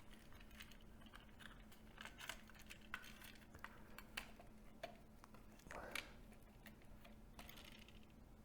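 Faint, scattered light clicks and taps of the pried-open plastic optical block of a 3LCD projector being handled and opened, over a faint steady low hum.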